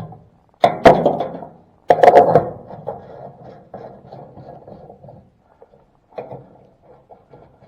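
Two loud wooden thunks about a second apart, with quieter knocking and shuffling of wood after them.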